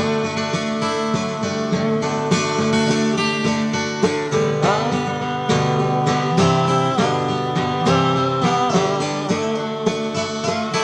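Acoustic guitar music: plucked and strummed chords, with a few notes sliding in pitch about halfway through and again near the end.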